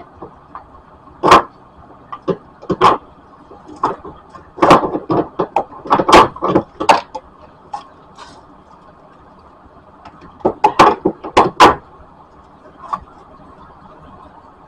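Irregular clanks and knocks of metal parts and hand tools, in short clusters, as a new transmission engine mount is worked into place in the engine bay.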